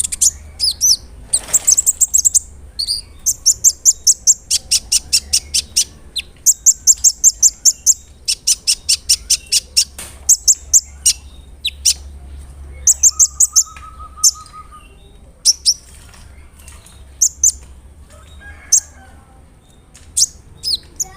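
Kolibri ninja sunbird singing: fast runs of very high, sharp repeated notes and trills, coming in dense bursts for the first half and more scattered chirps later on.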